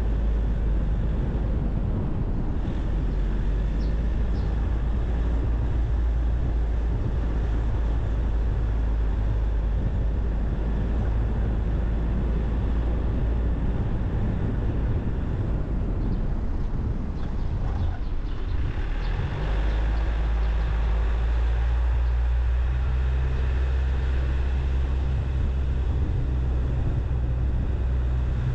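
Car driving on city streets, heard from the car itself: a steady low rumble of engine and tyre noise. About two-thirds of the way in the tyre noise drops away, leaving a steady low hum.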